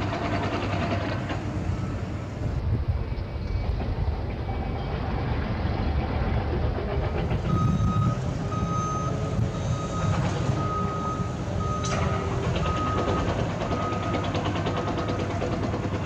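Backup alarm on construction machinery beeping at a regular pace, about one beep a second, starting about halfway through, over a steady low rumble of site machinery.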